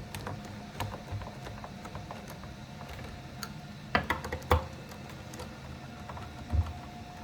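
Screws being driven to fasten the cover of a micro cell radio unit: scattered small clicks and taps, with two sharper clicks about four seconds in and a dull knock near the end.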